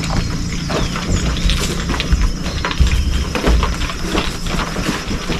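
A young horse's hooves moving on the ground as it is lunged, making irregular thuds and scuffs over a steady low rumble.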